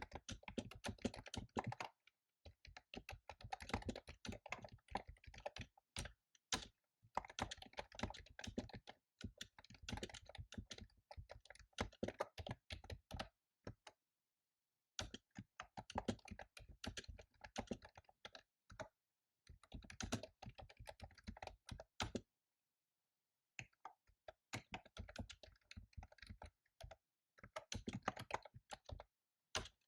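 Fast typing on a computer keyboard: runs of rapid key clicks broken by short pauses, the longest about halfway through and again about three-quarters of the way in.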